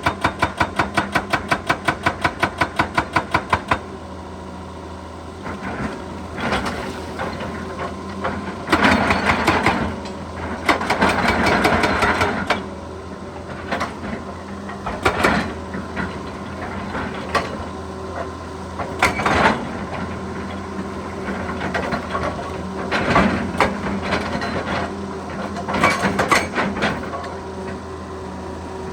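Excavator-mounted hydraulic breaker hammer pounding rapidly and evenly, stopping about four seconds in. The excavator's engine keeps running under irregular clanks and crunches of broken rock.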